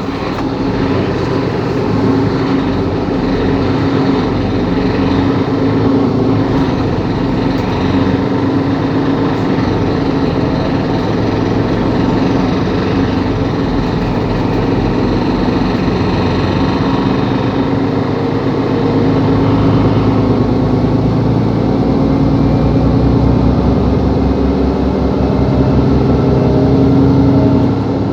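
Mercedes-Benz Capacity L articulated city bus's diesel engine running steadily, its pitch rising slowly through the second half before the level drops near the end.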